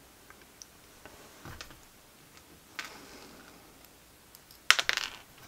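Small metal parts clicking and tapping as a camshaft cover with its tappets is fitted by hand onto an aluminium model V6 engine block, with a quick cluster of sharper, louder clicks near the end.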